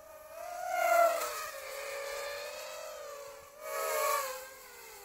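Quadcopter's electric motors and propellers whining, the pitch wavering up and down with the throttle. It swells loudest about a second in and again near four seconds.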